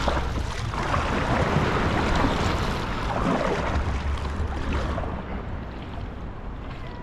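Sea water sloshing and splashing around a kayak, with wind buffeting the microphone; it eases off near the end.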